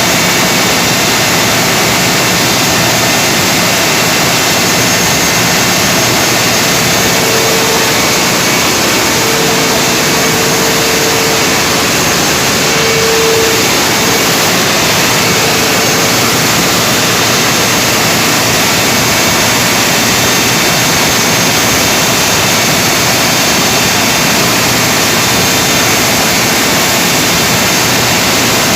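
Generator engine running loudly and steadily during a load test, a dense even roar with no change in speed. A faint steady tone rises above it for several seconds in the middle.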